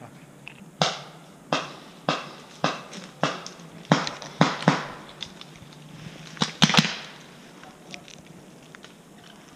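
Paintball marker firing about ten single shots at an uneven pace, the last three in a quick burst, each a sharp pop of compressed air.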